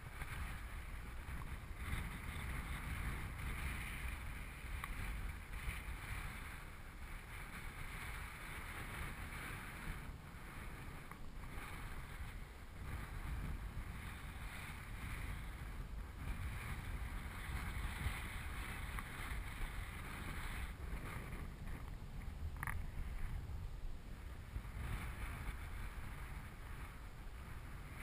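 Wind buffeting the microphone: a steady low rumble with hiss, rising and falling in gusts.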